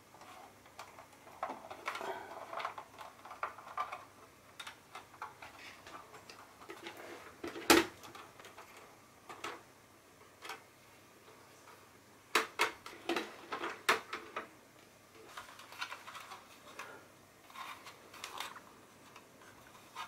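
Hard plastic clicking, creaking and rubbing as the front guard of a Yamazen YAR-DW15 circulator is twisted and unlatched by hand, with one sharp snap about eight seconds in and a quick run of clicks a few seconds later as the guard comes free.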